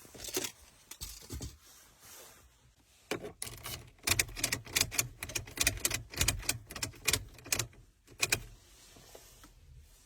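Quick runs of sharp clicks and rattles from hands handling a car key and key-programming gear: a few clicks early, then a dense clattering run from about three seconds in until near the end.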